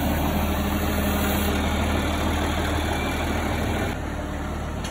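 John Deere tractor engine running steadily at low speed, a low drone, as the front-loader tractor works with its pallet forks; it drops in level about four seconds in.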